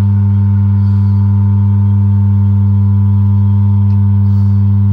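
Steady low electrical hum at mains pitch from the drill grinder's electric motor, with a few faint clicks of metal parts being handled.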